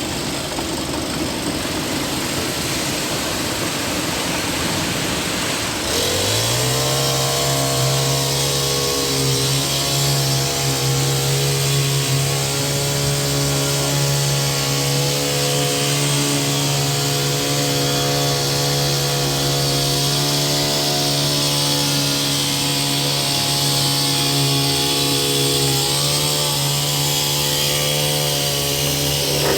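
Concrete truck's diesel engine revving up about six seconds in and holding steady at high revs, then dropping back near the end, as it drives the drum to discharge concrete down the chute.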